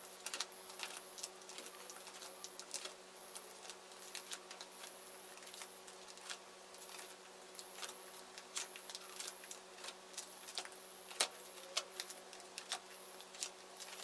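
Plastic pocket sleeves of a ring binder crinkling and ticking as its pages are turned one after another: faint scattered clicks, with a few sharper ticks toward the end.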